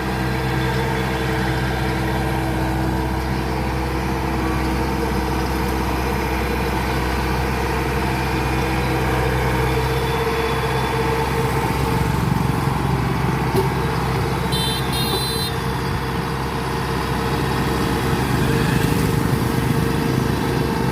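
Kubota DC93 combine harvester's diesel engine running steadily. A brief high chirp sounds about two-thirds of the way through.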